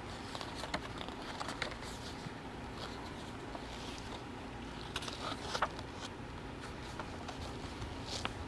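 Scattered light rustles and small clicks of handling, over a faint steady background hum.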